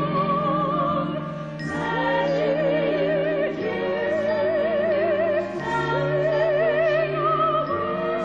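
Operatic soprano singing long held high notes with wide vibrato, without words, over a steady instrumental accompaniment.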